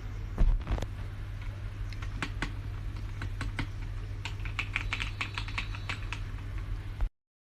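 Keystrokes on a K68BT mechanical keyboard with red linear switches, typed irregularly with a quicker run about four to six seconds in and one louder knock near the start, over a steady low hum. The sound cuts off abruptly near the end.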